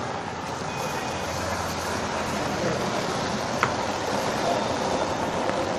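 Steady outdoor vehicle noise, with a short sharp click about three and a half seconds in.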